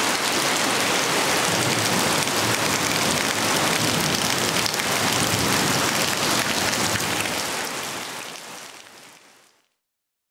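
Heavy rain falling on tiled roofs: a steady, dense hiss that fades out near the end.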